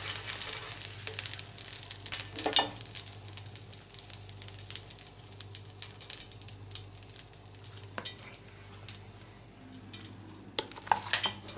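Fried egg sizzling in hot cooking oil in a frying pan, a steady hiss with many small crackling pops that thins out near the end.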